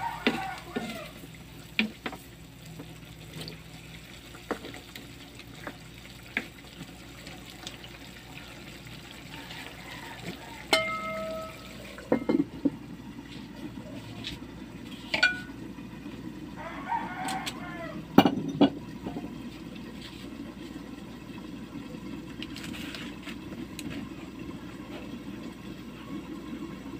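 Metal spatula knocking and scraping in a wok as pork adobo simmers in its sauce. About eleven seconds in a metal lid rings briefly as it is handled and set on the pan. After that the covered wok simmers with a steady low bubbling, broken by a few knocks.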